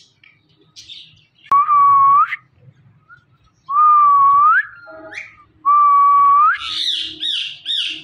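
Indian ringneck parakeet whistling: three loud, long whistles about two seconds apart, each holding one pitch and then sweeping up at the end. Near the end comes a quick run of higher, shrill squawking notes.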